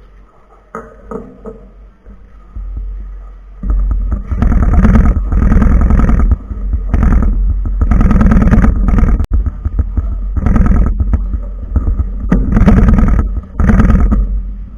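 A 4x4 speedcube being turned fast, its plastic layers clicking and rattling in loud bursts with short pauses between them. The sound is distorted and heavy in the bass, as picked up by a microphone resting on the same table.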